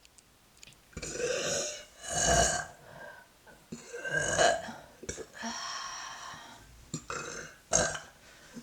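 A young woman belching repeatedly, about six burps in a row, the one around the middle held longest.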